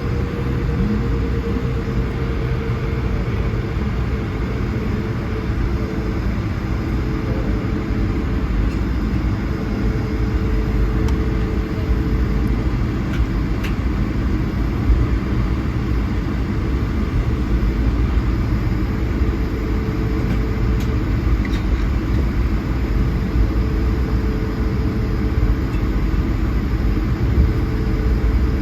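Cabin noise of an Airbus A220-100 taxiing: a steady low rumble from the wheels and its Pratt & Whitney PW1500G geared turbofans at low thrust, with a steady droning hum over it.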